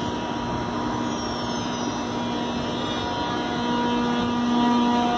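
ICE 3 (class 403) high-speed electric train pulling away, its traction converters giving steady humming tones over the rolling noise. About three seconds in, further tones join at different pitches and the sound grows louder as the train gathers speed.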